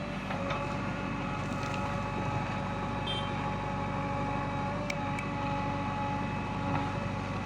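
Diesel engine of a JCB backhoe loader running steadily at an even pitch, with a couple of faint clicks about three and five seconds in.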